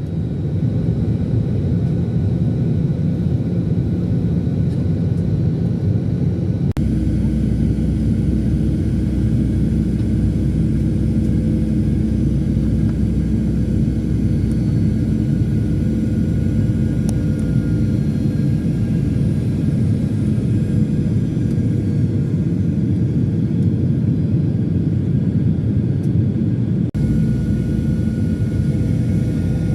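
Airliner engine noise heard inside the passenger cabin: a steady, dense low rumble with a faint steady hum over it. Its tone shifts abruptly about seven seconds in and again near the end.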